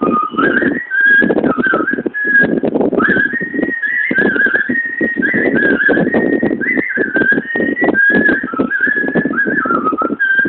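A woman whistling a tune by mouth, the melody stepping and sliding up and down with quick turns and short trills, over a rhythmic musical accompaniment.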